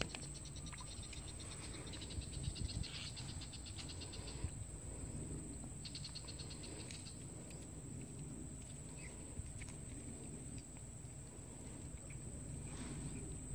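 Insects chirring in the grass: a steady high-pitched drone, with a fast pulsing trill that stops about four and a half seconds in and comes back briefly around six to seven seconds. A low rumble runs underneath.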